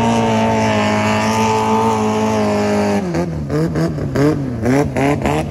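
Longtail boat engine running loud at steady high revs, then about three seconds in the revs drop and rise again and again in quick blips.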